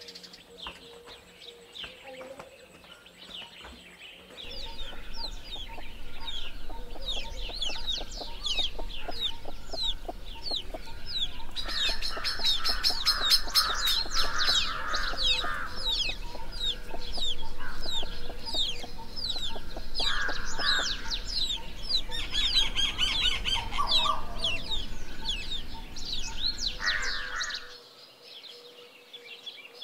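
Chickens clucking, with a dense run of short, falling high-pitched chirps; it starts about four seconds in and stops shortly before the end.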